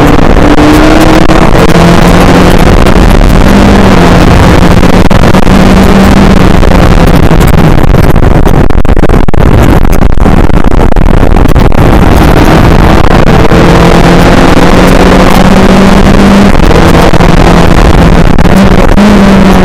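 Skip Barber race car engine at racing speed over heavy rushing noise, very loud and clipped. The engine note climbs and drops back with upshifts early on, goes rougher for a stretch in the middle, then climbs again with more shifts near the end.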